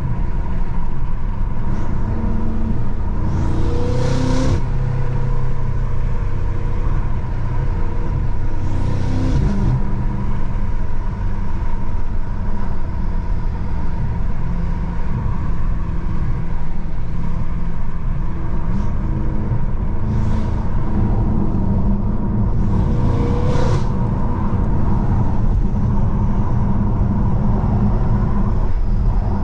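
BMW M5 F90's twin-turbo 4.4-litre V8 running under way, a steady low drone mixed with road noise, its pitch rising a few times. Short bursts of hiss come about four times.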